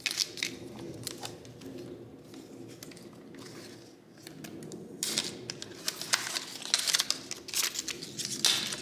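Paper and plastic packaging crinkling and rustling with scattered light clicks and taps as a VR headset is unpacked by hand; busiest from about five seconds in.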